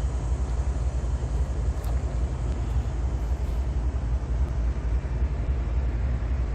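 Wind buffeting the microphone: a steady low rumble that does not let up.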